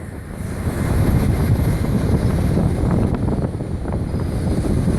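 Jet engines of a Boeing 747-400 running at takeoff power on the departure roll: a low rumble that builds over about the first second and then holds steady, with wind buffeting the microphone.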